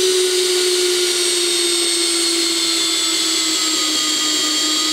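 Makita cordless drill-driver running in one long steady whine while driving a screw through drywall into wood behind it, its pitch sinking slowly under load. The drill's battery seems to be running low.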